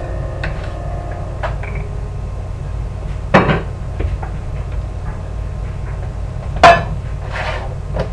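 Kitchen clatter of dishes and utensils handled at a counter: light knocks and clinks, with two loud bangs about three seconds apart.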